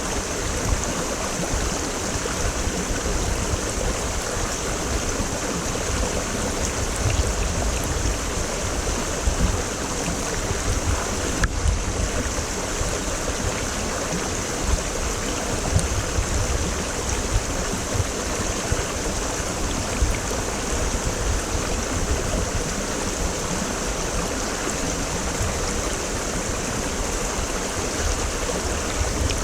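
Mountain creek water rushing steadily: a deep rumble under a bright hiss of flowing water.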